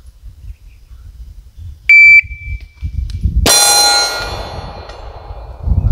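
A shot timer gives one loud start beep. About a second and a half later a Smith & Wesson M&P 40 (.40 S&W) pistol fires a single shot, and the hit steel target rings, the ring dying away over about two seconds. This is a quick draw from the holster, timed at 1.58 seconds.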